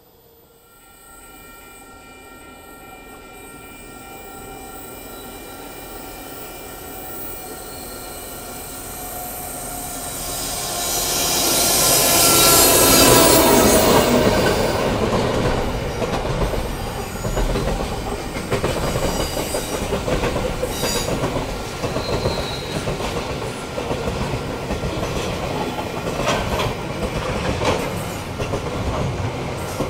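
A diesel-hauled container freight train approaching and passing. It builds steadily from about a second in, peaks with a falling pitch as the locomotive goes by, then the wagons keep up a steady rumble with a rhythmic clatter of wheels over rail joints.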